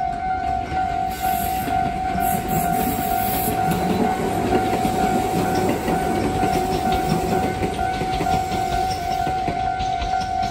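Tobu Railway level-crossing alarm ringing with its standard electronic tone, repeating evenly throughout. Meanwhile a train passes: its running rumble swells about halfway through, and its wheels click over the rail joints near the end.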